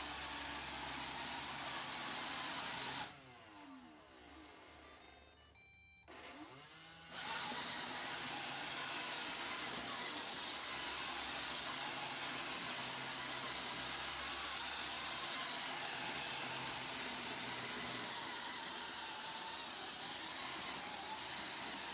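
Roomba robot vacuum running, a steady whirring hum of its motor and brushes; the sound drops away for about four seconds near the start, then comes back.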